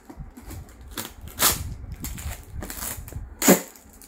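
Clear plastic storage box being opened and handled, with two sharp plastic clacks, the second the louder, near the end, over the rustle of plastic jewellery packets being sorted.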